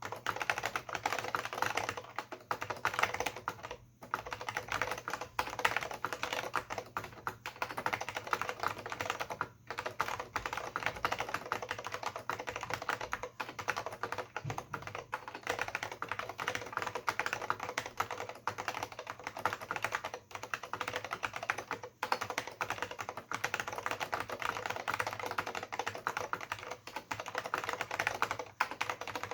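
Fast, continuous typing on an AT&T Unix PC keyboard with Alps SKCM Brown switches and PBT dye-sub keycaps: a dense stream of key clicks and clacks, with brief pauses about four, nine and twenty-two seconds in.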